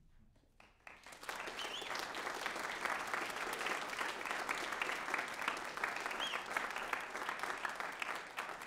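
Audience applauding, the clapping swelling in about a second in and going on steadily.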